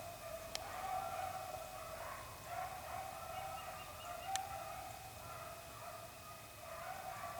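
A pack of beagles baying far off while running a rabbit, their voices coming in overlapping bouts. Two short sharp clicks, about half a second in and just past four seconds.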